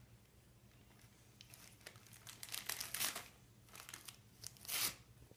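Wrapping paper crinkling and tearing as a small child pulls it off a present, in a few short bursts starting about two seconds in, the loudest near the end.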